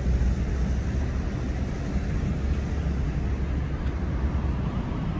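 Steady low rumble of vehicle noise, without breaks or sudden events.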